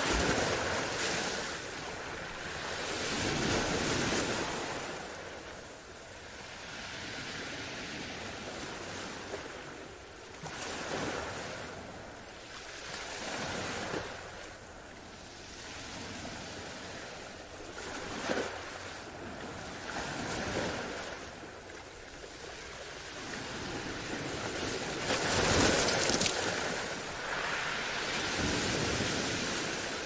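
Ocean surf: waves breaking and washing in, a rushing noise that swells and ebbs every few seconds, with the biggest surge near the end.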